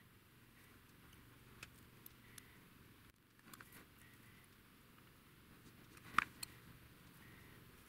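Faint small clicks and taps of metal hobby tools, a pin tool and fine tweezers, handling a tiny resin seat with photo-etch seat belts, with a sharper tap about six seconds in.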